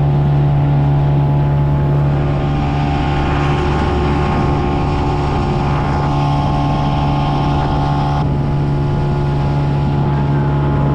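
Outboard motor running steadily at cruising speed, pushing a small boat along, with the rush of wind and water.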